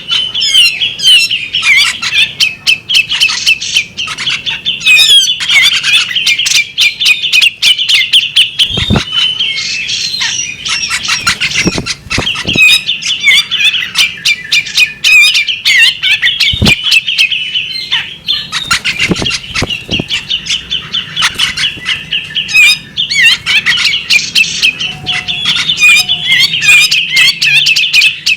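Female bearded magpie-robin singing a continuous, rapid, chattering and twittering song. A few short, low thumps break through it.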